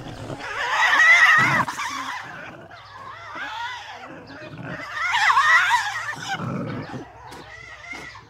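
Tasmanian devil screeching: two loud wavering calls, each about two seconds long, one just after the start and one about five seconds in, with quieter calls between.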